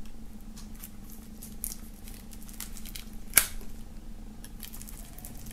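Knife blade slitting and scratching at the plastic shrink-wrap on a CD digipak: faint scattered scratches and clicks, with one sharper click about three and a half seconds in.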